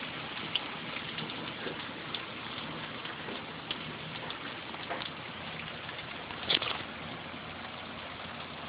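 Hail falling in a storm: a steady hiss with scattered sharp clicks of hailstones striking, and one louder strike about six and a half seconds in.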